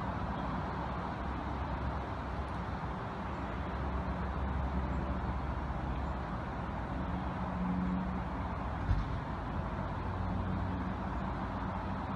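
Steady highway traffic noise: the continuous rush of tyres and engines from passing vehicles. A low hum rises twice, and there is one short thump about nine seconds in.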